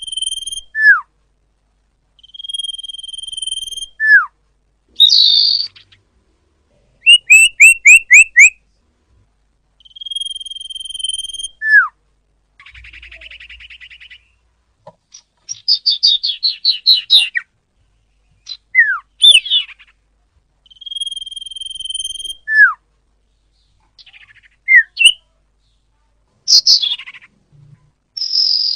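Song of a sirpu (sirdung), a jungle flycatcher kept as a songbird, played as a lure call. Long, steady, high whistles, each ending in a short downward slur, alternate with quick rattling trills and buzzy, scratchy phrases in a repeating sequence.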